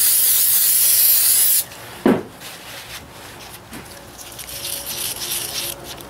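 A pressurised cleaning spray hisses in a steady burst for about a second and a half onto oily tractor drain plugs. A single knock follows, then quieter rubbing and scrubbing as the plugs are cleaned.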